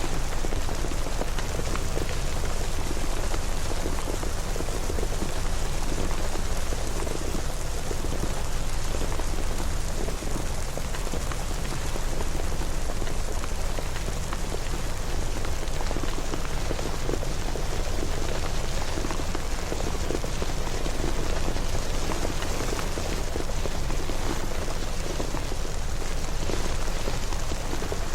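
Steady rain falling and pattering on surfaces, with a dense texture of drop hits over a low rumble.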